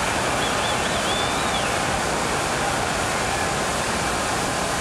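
Large boxing-arena crowd making steady, loud crowd noise during an exchange of punches, with a brief high wavering whistle about half a second in.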